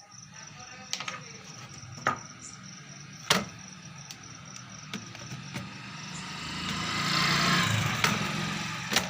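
Scattered sharp clicks and taps of soldering work on an amplifier driver board, with a broad noise that swells up and fades away about six to eight and a half seconds in.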